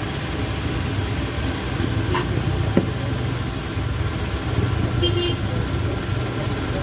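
An engine or motor running steadily with a low rumble, with one sharp click a little under three seconds in.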